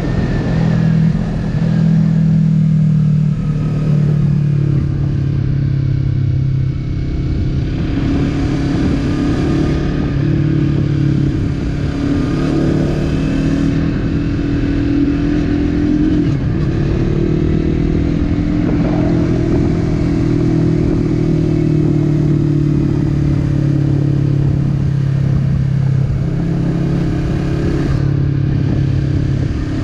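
Yamaha MT-03's 321cc twin-cylinder engine running steadily under way, its pitch sagging and rising a little now and again with the throttle, over a low rush of wind noise.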